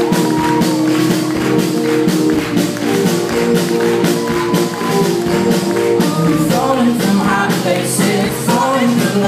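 Live band music: held chords over quick, evenly spaced percussion hits, with a voice singing from about six and a half seconds in.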